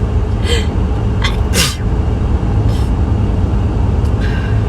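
A handful of short, sharp nasal sniffs from a person with a runny hay-fever nose, over a loud, steady low rumble.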